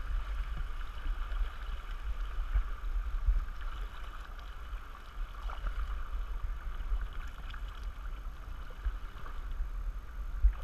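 Fast-moving river water rushing and lapping around a canoe running the tail of a rapid, with wind rumbling on the microphone.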